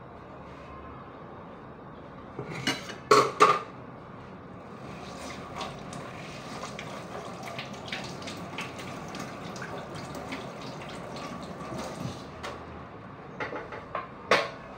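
A ladle being washed under a running tap: water runs for several seconds with small clicks, and the ladle clinks loudly against metal about three seconds in and again near the end.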